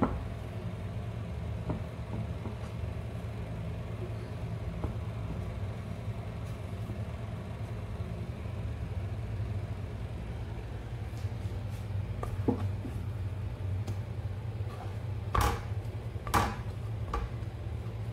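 Steady low mechanical hum, with a few faint clicks and two sharp knocks about a second apart near the end.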